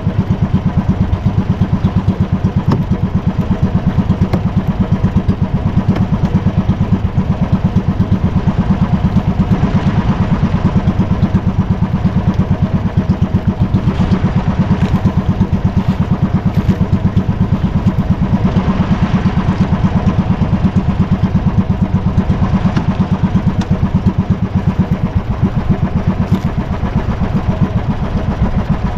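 Small single-cylinder boat engine running steadily at low revs, with an even, rapid chugging beat.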